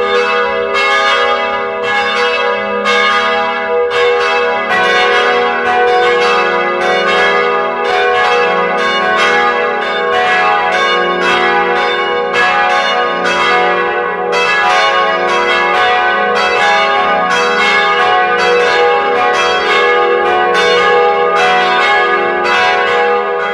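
Church bells ringing, a steady run of strikes about two a second, each note ringing on into the next; the pattern of notes changes about four seconds in.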